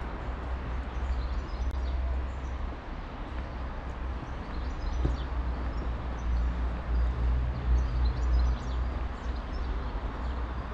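Morning street ambience: small birds chirping over a steady low rumble, with a vehicle engine humming from about five seconds in to about nine.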